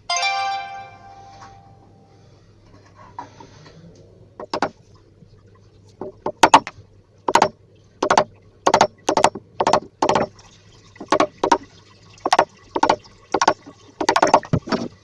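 A brief ringing tone at the start. Then, from about four and a half seconds in, a chisel is struck again and again in sharp knocks, roughly two a second, chopping the recess for a door lock keep into the frame.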